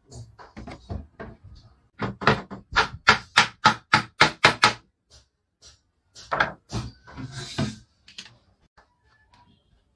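Hammer blows on the wooden case of a harmonium being assembled. Light scattered taps, then a fast run of about a dozen loud blows at about four a second, and a few more blows a little later.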